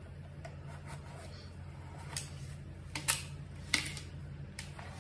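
Knife cutting lengthwise through a whole watermelon: a few short crackles and cracks as the blade goes through the rind and the melon splits, over a steady low hum.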